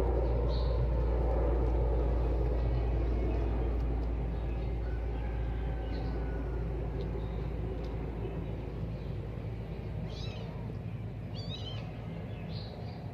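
Low, steady rumble of a distant passing vehicle, slowly fading away. A few short high chirps come in near the end.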